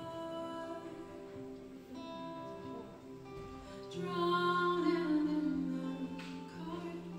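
A woman singing live to her own acoustic guitar, holding long, slow notes. Her voice grows louder about four seconds in.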